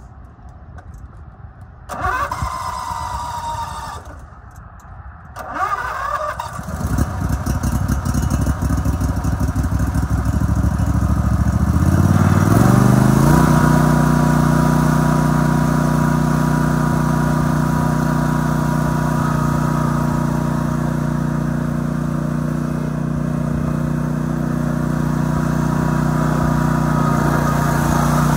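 Zero-turn mower's 25 hp Briggs & Stratton Professional Series V-twin being started: the starter cranks briefly about two seconds in and again about five seconds in, then the engine catches and runs unevenly. About twelve seconds in it revs up and holds a steady high speed.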